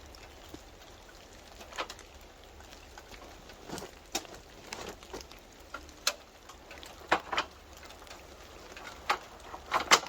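Irregular sharp knocks and taps, a dozen or so scattered unevenly, with a cluster of louder ones near the end.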